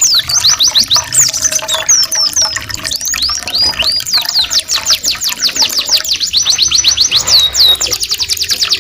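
Domestic canary and white-eye song used as a training recording: fast, dense high trills and runs of rapidly repeated down-sweeping notes, about eight a second in the middle stretch, laid over a steady trickling-water sound effect.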